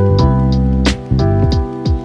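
Background music with a steady drum beat and bass.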